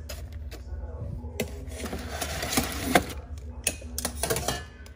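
Metal tongs turning roasted vegetables on aluminium foil in an air fryer oven: foil crinkling and scraping, with sharp clicks of the tongs against the tray. The handling is loudest about two to three seconds in, over a steady low hum.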